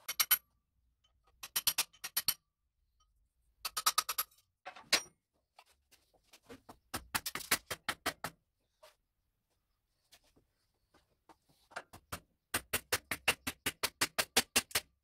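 Ratchet spanner clicking in short runs of quick, even clicks, about six a second, as it is swung back and forth on a bolt. There are five runs, and the longest, about two seconds, comes near the end.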